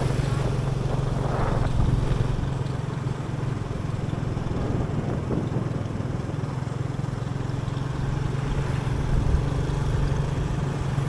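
Steady running noise of a vehicle travelling along a road: a constant low engine hum under a wash of road and wind noise.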